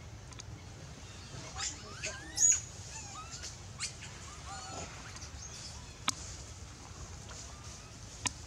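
Baby long-tailed macaque screaming in distress: a run of short, high-pitched, wavering squeals bunched in the first half, the loudest about two and a half seconds in, with fainter cries after. Two sharp clicks come later.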